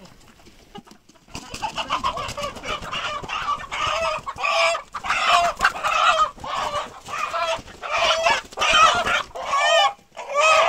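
Chickens squawking loudly in alarm as they are caught and handled: after about a second of quiet, a rapid, unbroken run of harsh calls that rise and fall in pitch.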